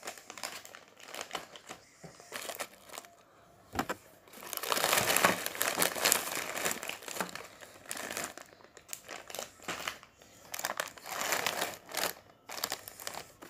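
Crinkly foil wrappers of collectible packs rustling and crinkling as they are handled, in irregular bursts, loudest about halfway through.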